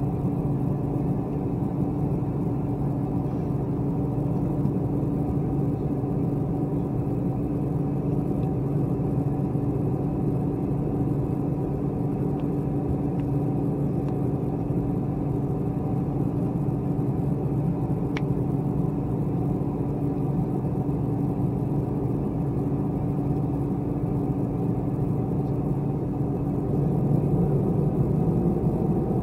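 Airbus A321 jet engines idling as the airliner taxis, heard inside the cabin: a steady hum over a low rumble, growing a little louder near the end.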